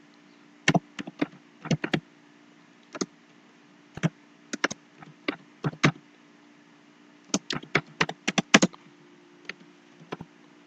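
Typing on a computer keyboard: quick runs of keystrokes with short pauses between them, over a faint steady hum.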